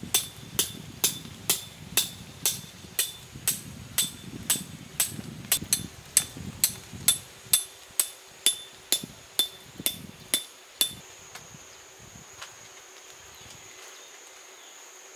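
A hammer striking metal in an even rhythm, about two blows a second, each blow ringing briefly. The blows stop about eleven seconds in.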